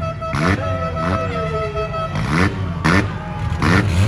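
Several 4-cylinder demolition derby cars' engines running and revving in repeated short bursts. In the first half a steady high tone is held for about two seconds.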